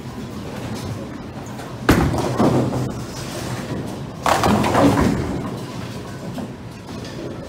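A Storm Shift Lock bowling ball rolling down a lane and crashing into the pins, with a sharp loud crash about two seconds in and a second, longer clattering crash of pins a little past four seconds.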